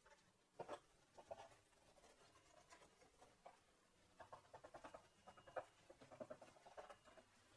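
Faint, irregular scraping and clicking of a kitchen knife cutting fillet from fish steaks on a wooden cutting board, busier in the second half.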